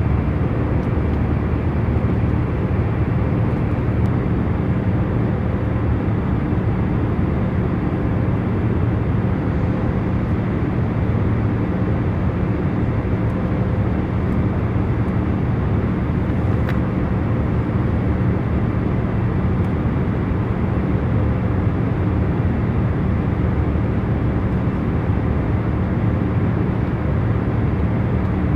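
Airliner cabin noise in cruise flight: a steady low rumble and rush of engine and airflow noise, with a faint constant hum of a few low tones underneath.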